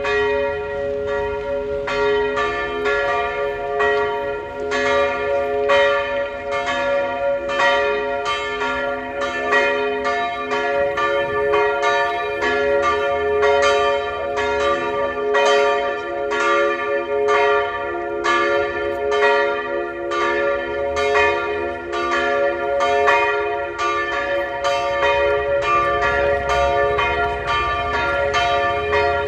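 The two church bells of St. Ägidius, tuned b' and d'', swinging and ringing together in full peal, the call to Mass. Their strokes overlap in a steady, even pattern of about two strikes a second, each stroke ringing on under the next.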